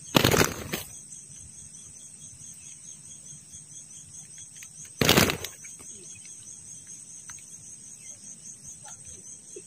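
Insects chirring steadily in a high, fast-pulsing drone, typical of crickets in tropical farmland. Two short, loud rushes of noise break in, one right at the start and one about five seconds in.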